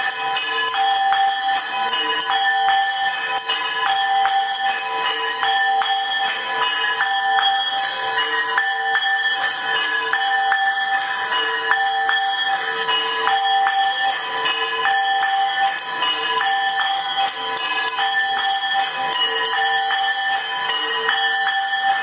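Temple bells ringing continuously for the arti, struck again and again in a steady rhythm so that their ringing tones overlap without a break.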